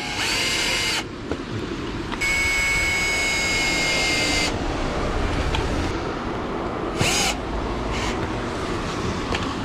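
Power drill-driver driving a screw into an ice box. The motor whines in short runs: about a second at the start, a steadier run of about two seconds, and a brief spin near the end.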